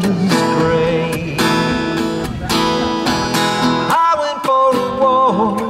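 Music: strummed acoustic guitar with a wavering melody line held over it.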